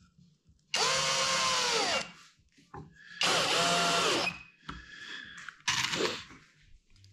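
Cordless drill-driver driving screws into wood: two runs of about a second each, the motor whine rising and then falling away in each, followed by a shorter run near the end.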